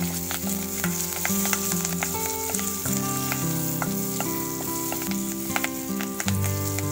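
Curry leaves, cumin and asafoetida sizzling in hot ghee in a steel kadai, stirred with a steel spatula that clicks and scrapes against the pan.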